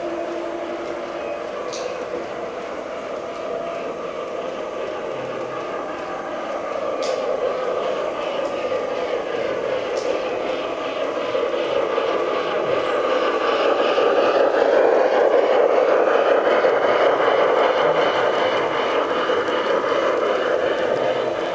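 LGB garden-scale model train running on its track: a steady rolling rumble that grows louder from about a quarter of the way in, with a few sharp clicks and faint sliding whines over it.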